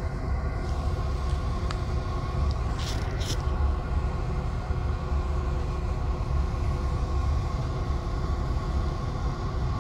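Steady low rumble of a Greyhound coach's engine and running gear, heard from inside the cabin while the coach drives, with two short hisses about three seconds in.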